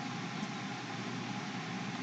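Steady, even hiss of background noise with a low hum underneath and no distinct events.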